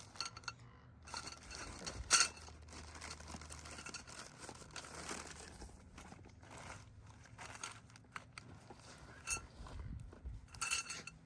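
Metal arch kit parts being handled and sorted: pieces clinking against each other with a brief metallic ring, over rustling and crinkling of packaging. The sharpest clinks come about two seconds in and twice near the end.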